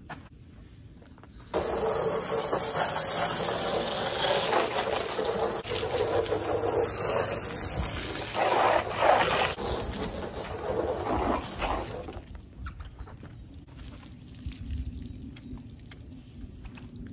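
Garden hose spray nozzle jetting water onto a window pane to rinse it, a loud steady spray that starts suddenly about a second and a half in and cuts off after about ten seconds.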